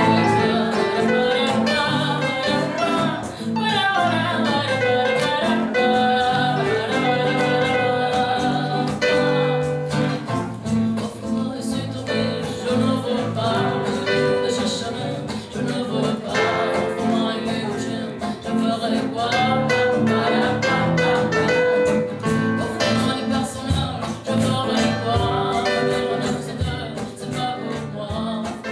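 Music: a voice singing with a guitar accompaniment.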